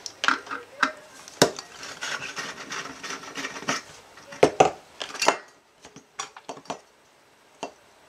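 Hard clicks, taps and scraping as an electronic unit's circuit board and metal parts are handled on a workbench. Busy for about the first five seconds, then only a few scattered clicks.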